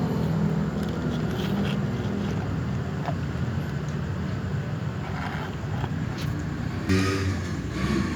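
Steady low rumble, like passing road traffic, with a short pitched sound about seven seconds in.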